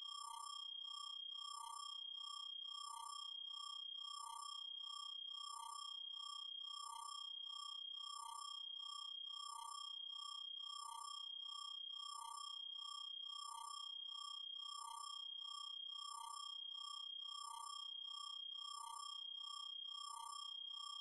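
Electronic sound effect: a steady high tone over two lower tones that pulse in an even beat about three times a second, making a hypnotic, sci-fi drone.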